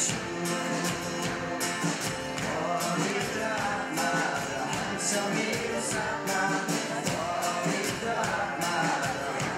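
Live worship band and group of singers performing a Nepali-language worship song, with a steady beat.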